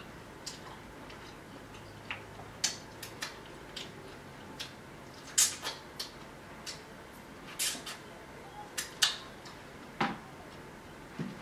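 Wet mouth smacks and sucking clicks from a person eating a lemon wedge, a dozen or so short, irregular sharp clicks.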